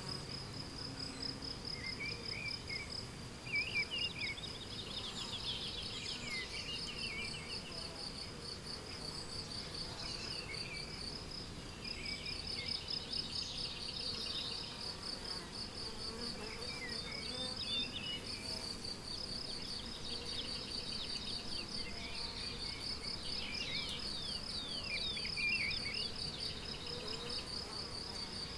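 Crickets chirping in a steady, fast-pulsed high trill, with songbirds breaking in now and then with short warbles and trills.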